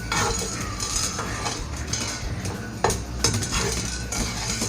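A metal spoon scraping and clinking in a dry pan, stirring cloves, black peppercorns and sliced ginger as they roast without oil, in irregular strokes.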